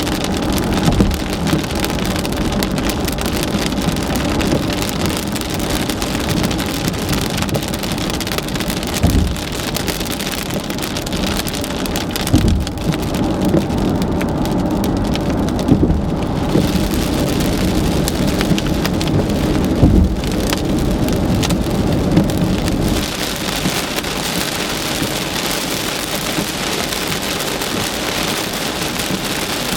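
Heavy monsoon rain pelting a moving car, a steady hiss over a low road rumble, with a few brief low thumps. About 23 s in the low rumble drops away and the rain hiss grows brighter.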